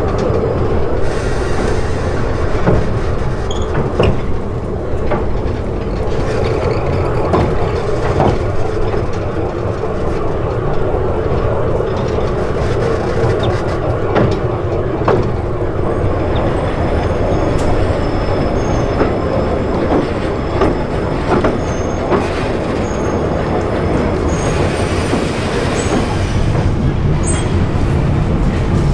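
Heritage railway train rolling along the line: a steady running rumble from the wheels on the rails, with scattered clicks from the rail joints and a few brief high wheel squeals.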